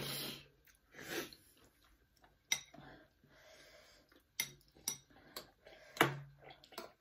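Scattered small clicks and knocks of things being handled, with a few brief soft noises between them.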